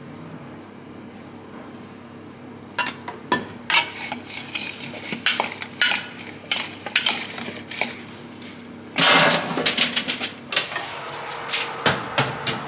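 A metal spoon clinks and scrapes against a glass bowl as sliced potatoes are tossed with oil and spices, in scattered sharp taps. From about nine seconds in comes a louder, busier clatter as the potatoes go onto a baking tray. A steady low hum runs underneath.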